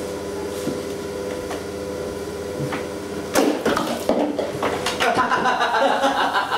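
A steady hum, then from about three seconds in a burst of knocks and clattering as a wooden door is handled and a panel blocking the doorway is pushed and banged, with a man laughing near the end.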